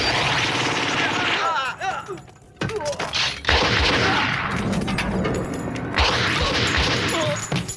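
Gunfight: sustained, dense volleys of gunfire with a brief lull about two seconds in.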